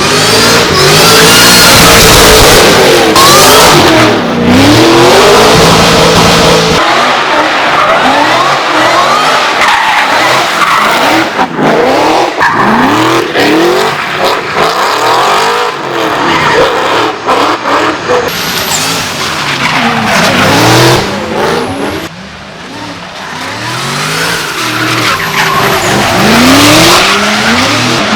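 Supercharged GM LS V8 in a Nissan S14 drift car, revving up and falling back again and again through a drift, with tyres squealing and skidding. It fades briefly about two-thirds of the way through, then builds up again.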